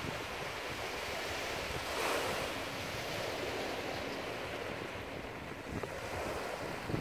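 Small sea waves washing onto the shore, one swelling louder about two seconds in, with wind buffeting the microphone in a few low gusts near the end.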